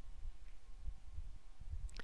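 Quiet room tone: a low rumble with a faint steady electrical hum, and a faint tick near the end.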